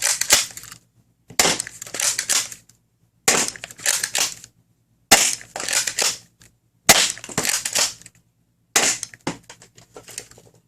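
Dart Zone Pro Mk2 foam-dart blaster being primed and fired repeatedly, Dart Zone MAX half-length darts shot one after another. There are about six shots, each a sharp crack with a short clatter, coming every couple of seconds.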